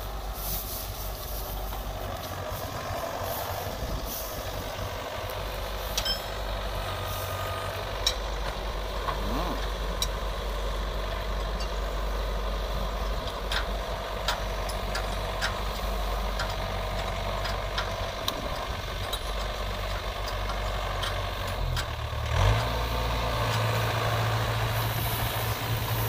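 Yanmar AW82V crawler combine harvester's diesel engine running steadily as the machine drives onto a tractor's flat deck, with scattered sharp clanks; the engine note rises and changes about 22 seconds in.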